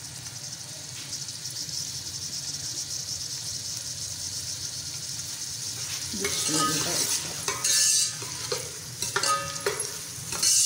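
Sliced onions sizzling as they fry in hot oil in a metal pot. From about six seconds in, a metal ladle stirs them, scraping against the pot in several louder strokes.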